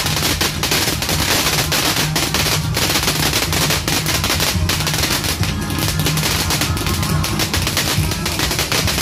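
Fireworks and firecrackers going off in rapid, continuous popping and crackling, with no pause between bursts.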